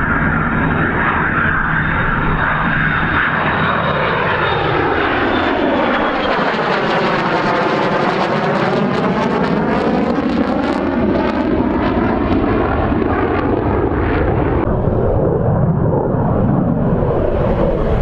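Military fighter jet's engines running loud as it flies past, the whooshing sound sweeping down in pitch and back up as it goes by. About fifteen seconds in, the sound changes abruptly to a duller, lower jet noise.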